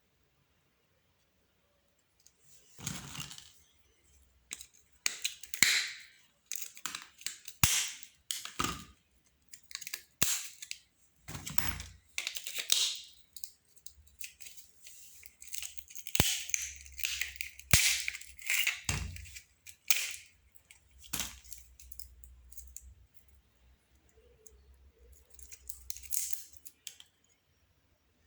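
Plastic and metal parts of an old telephone handled and pried apart during disassembly: irregular sharp clicks, cracks and short scrapes with quiet gaps between them.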